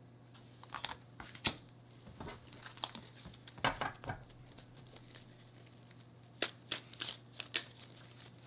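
A deck of tarot cards being handled and shuffled: scattered card rustles and flicks, then a quicker run of shuffling near the end. A faint steady low hum sits underneath.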